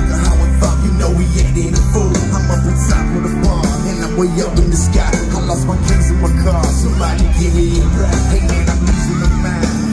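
Live country-rap band playing loudly: electric guitar, a heavy steady beat and vocals.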